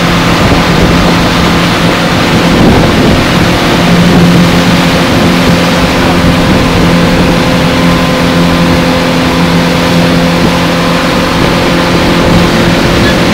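Outboard motor running steadily at towing speed, a constant engine drone over the rush of the churning wake water.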